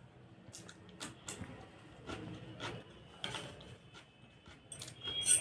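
A person chewing and eating fried eggs with gravy: a string of short wet mouth clicks and smacks, with a louder click near the end.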